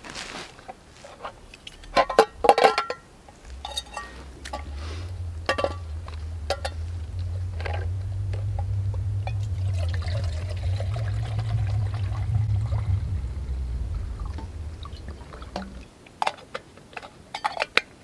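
Water poured from a plastic water bottle into a camp cup: a steady pour of about ten seconds whose pitch rises as the cup fills. Sharp handling clicks and clatter come before the pour and again near the end.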